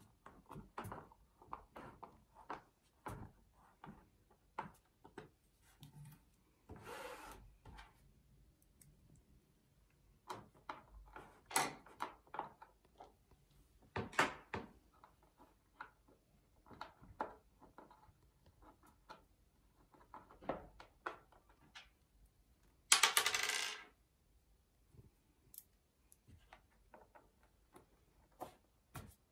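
Hex key turning the screws in a TDK A73 boombox's housing: a run of small, irregular metallic clicks and scrapes. About 23 seconds in comes a louder rasping noise lasting under a second.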